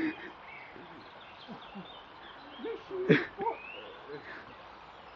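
Shallow stream running with a steady rushing hiss. About three seconds in, a short hooting voice rises above it, and small birds chirp faintly.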